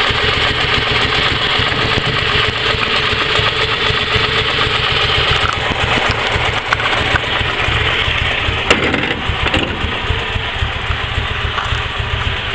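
Panhard 24 CT's air-cooled flat-twin engine running steadily. A single sharp click about nine seconds in.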